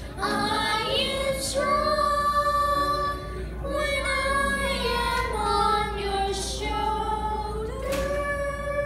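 Children singing a song into microphones with held notes, accompanied by piano and violin.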